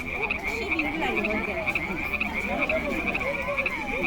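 A steady chorus of calling animals: a high, rapidly pulsing chirp that never lets up, over a jumble of wavering lower calls.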